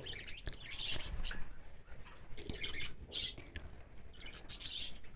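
Faint bird chirps, a few short calls about a second apart, over a low background hum.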